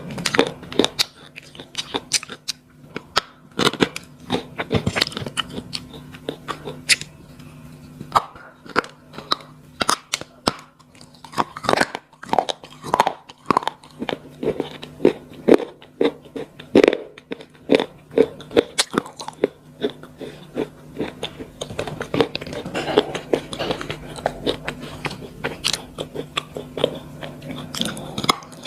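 Slate pencils being bitten and chewed close to the microphone: dense, irregular crisp crunches, several a second.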